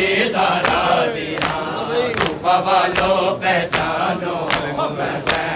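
A crowd of male mourners chanting a noha in unison, with matam: hands slapping bare chests in a steady beat, a sharp slap about every three-quarters of a second.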